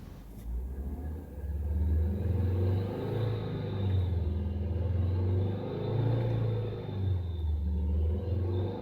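2012 Volkswagen Jetta's 2.5-litre five-cylinder engine starting about half a second in and running, its pitch stepping up and down, with a faint high steady whine above it.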